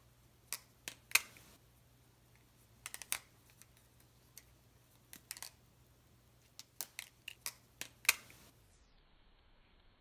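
Balisong (butterfly knife) being flipped by hand, its metal handles clicking and clacking against each other in a string of sharp clicks in uneven clusters. The clicks stop about eight and a half seconds in.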